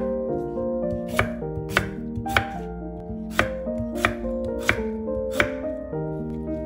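A kitchen knife chopping raw unpeeled potatoes on a wooden cutting board: about seven sharp knocks of the blade on the board, one every half second to a second. Soft background music plays under it.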